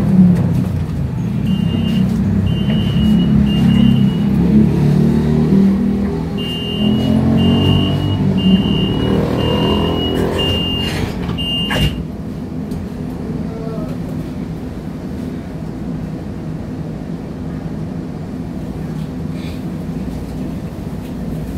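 Street traffic and vehicle engine noise heard from inside a streetcar, with a string of short, high-pitched electronic beeps over the first half. The beeps and the louder rumble stop about twelve seconds in, leaving a steadier, quieter hum.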